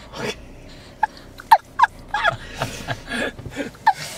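A newborn baby hiccuping: short, sharp squeaky hics, three close together about a second in and one more near the end, with soft breathy rustling between.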